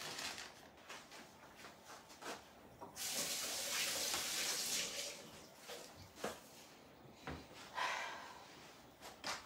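Handling noises of tiramisu assembly at a kitchen counter: a steady hiss lasting about two seconds, then a few light knocks of utensils and glassware.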